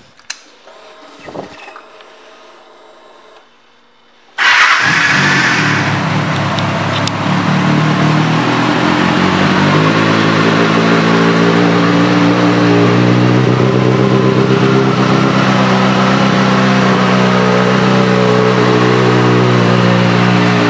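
A 2008 Kawasaki Ninja ZX-6R's inline-four engine, fitted with a Two Brothers Racing exhaust, starts about four seconds in after a click of the ignition. It runs at a fast idle, then drops to a lower steady idle about ten seconds in.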